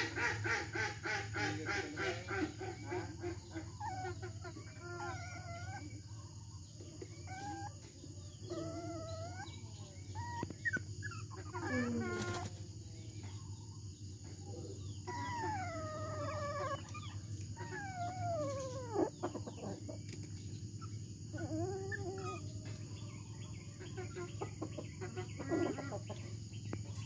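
Domestic chickens clucking and calling, with a dense run of calls at the start and several long falling calls in the second half, over a steady low hum.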